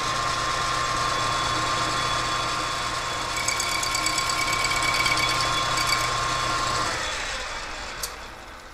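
Metal lathe running with a steady whine while facing the weld-repaired primary clutch housing of a 1976 Harley-Davidson golf cart. For a few seconds in the middle the tool lightly rubs high spots on the spinning face. About seven seconds in the lathe is switched off, and the whine falls away as the chuck coasts down, with a click near the end.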